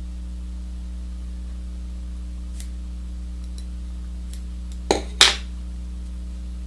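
Steady low electrical hum, with a few faint ticks and, about five seconds in, two sharp clicks in quick succession.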